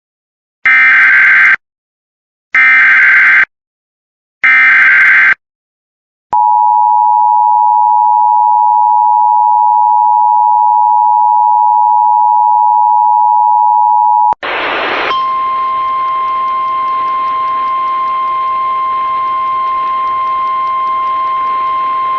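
Emergency Alert System signalling: three short warbling SAME header data bursts about two seconds apart, then the steady two-tone EAS attention signal for about eight seconds. That cuts off, and after a brief burst of static a single-pitch NOAA Weather Radio warning alarm tone sounds over hiss.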